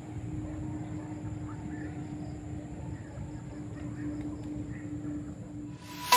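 Outdoor background noise with a steady low hum and faint, scattered bird chirps. Music begins right at the end.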